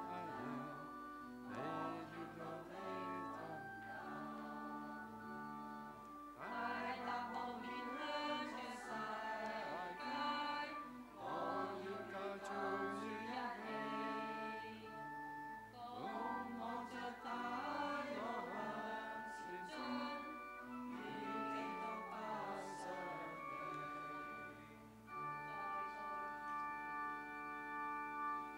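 Congregation singing the closing hymn of a Mass with keyboard accompaniment. Near the end the voices drop away, leaving held keyboard chords.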